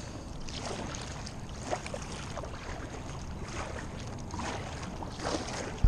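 Kayak paddling: a double-bladed paddle dipping and pulling through calm water in soft, regular strokes about once a second, with water swishing past.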